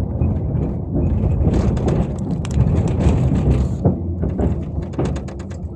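Tram running along the rails, a steady low rumble of wheels on track heard from inside the cab, with scattered clicks and a rapid run of sharp clicks near the end as it gets quieter.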